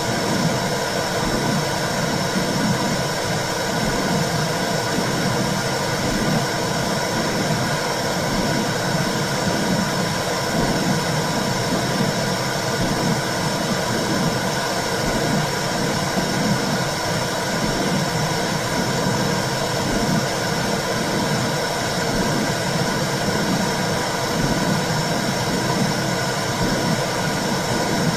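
Womb sound for soothing a baby: a steady whooshing noise with a low, rhythmic throb about once a second, like a mother's heartbeat and blood flow heard from inside the uterus.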